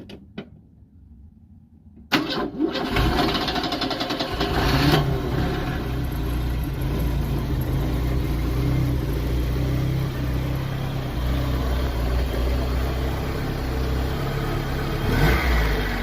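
Corsa's engine started about two seconds in, catching after a brief crank, then running at a steady idle, rising a little near the end. It runs again after a new timing belt and auxiliary belt.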